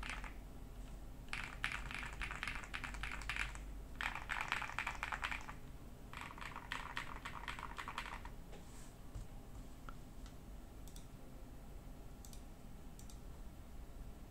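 Typing on an Ajazz AK820 Pro 65% all-plastic mechanical keyboard with Gift switches: four quick runs of keystrokes, then a few single key presses over the last six seconds. The owner hears very little rattle in it.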